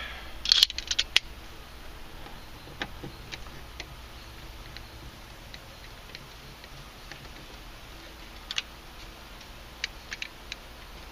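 Small clicks and ticks of a screwdriver working the screws out of a plastic car door panel. A cluster of sharp clicks comes about a second in, then scattered faint ticks, with a few more near the end.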